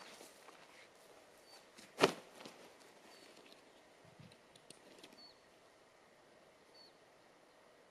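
A single sharp knock about two seconds in as a packed camping bag is put down on the ground, followed by faint rustling of the bag being handled. A few short, faint bird chirps.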